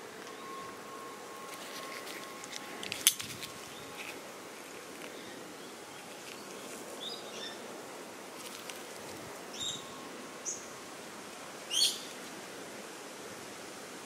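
One sharp metallic click about three seconds in as the blade of a Custom Knife Factory Evo 3.0 titanium folding knife is closed. Outdoor background noise runs throughout, with a few short, high bird chirps near the end.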